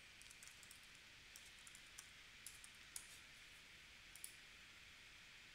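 Faint, scattered clicks of a computer mouse and keyboard over a low steady hiss.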